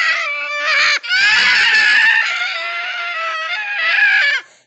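High-pitched cartoon scream in the Talking Tom Cat app's pitched-up voice: one long, wavering cry with a brief break about a second in, cutting off near the end.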